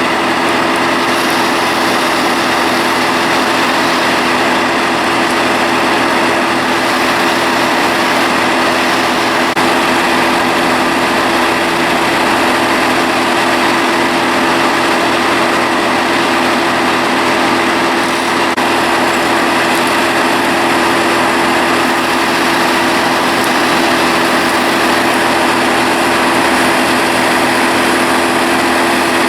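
A small engine running steadily at a constant speed, with no revving.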